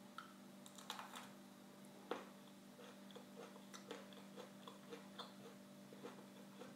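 A red chili pepper being bitten into, then chewed with faint, even crunches about three a second.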